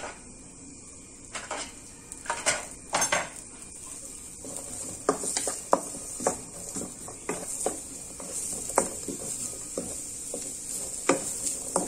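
Wooden spatula scraping and knocking against a nonstick pan while stirring diced carrots frying in olive oil, with a faint steady sizzle underneath. The knocks come irregularly, more often in the second half.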